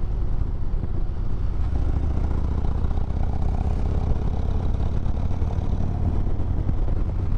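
Harley-Davidson Road Glide's V-twin engine running steadily with a low rumble.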